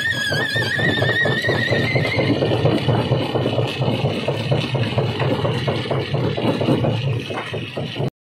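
Rock-crushing machinery running: a steady low hum under a dense, rapid rattle of stone, with a wavering high squeal over the first two seconds. The sound cuts off abruptly for a moment near the end.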